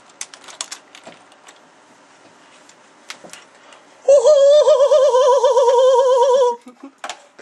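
A few light clicks and handling noises, then about four seconds in a man's voice makes a loud, high, wavering sustained tone, like a vibrato hum, into a small microphone held at his mouth. It lasts about two and a half seconds and cuts off.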